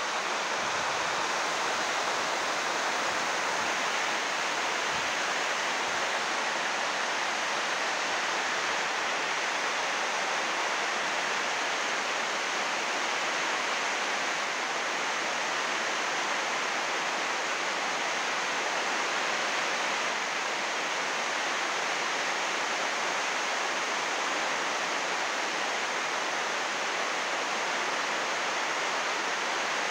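Heavy rain drumming on 80-micron UV greenhouse plastic sheeting: a dense, steady rush of drops that keeps on without let-up.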